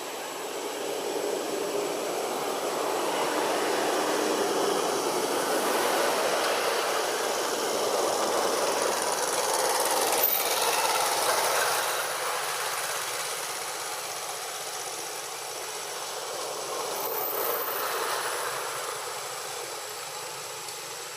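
Passing motor traffic: a rushing vehicle noise that swells and fades, then a second, shorter swell near the end.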